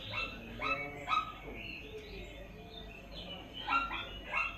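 A run of short animal barks from a sound effect: three about half a second apart, fainter calls in the middle, then three more near the end.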